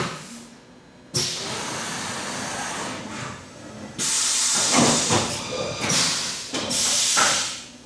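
Haas UMC 750 SS mill running a swing-arm tool change: two long bursts of loud air hiss from the pneumatic tool release, the second with a few mechanical clunks.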